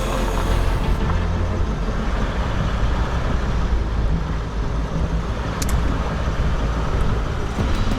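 A van driving: a steady low engine and road rumble with noise over it, and a short sharp click about six seconds in.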